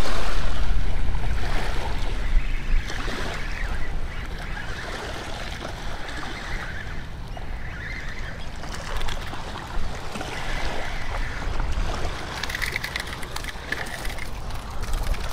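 Wind buffeting the microphone with a steady low rumble, with small waves washing onto a shingle shore.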